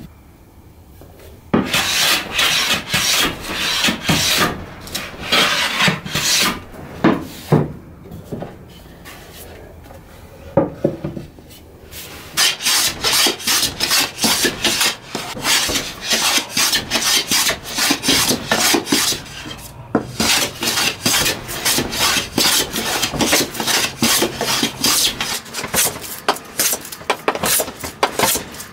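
Hand plane shaving the dark stain off a wooden tabletop in quick back-and-forth strokes, each a short rasping swish, about two or three a second. The strokes thin out for a few seconds in the middle and pause briefly once later on.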